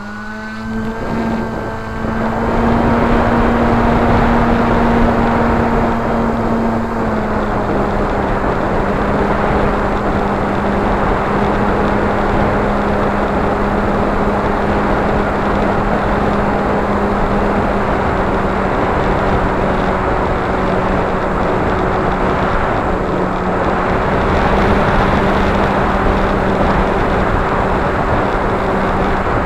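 Motor and propeller of a small FPV flying wing in flight, heard through its onboard action camera: a steady whine mixed with heavy wind rush. It grows louder over the first couple of seconds, and the whine drops slightly in pitch about seven seconds in.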